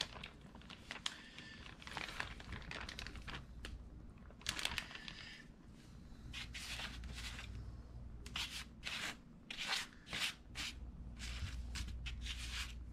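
A plastic zip-top bag crinkling as a piece of marinated fish is pulled out, then hands pressing and rubbing the fish into flour on a paper plate: a series of irregular soft rustles and scrapes.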